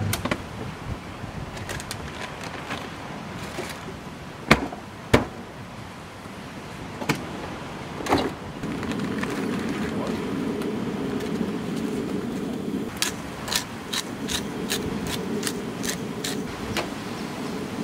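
Camping gear being handled, with a few sharp knocks and clunks, then a steady low rush from a Coleman camp stove's gas burner frying mushrooms on its griddle. Near the end comes a quick run of rattles as a seasoning shaker is shaken over the food.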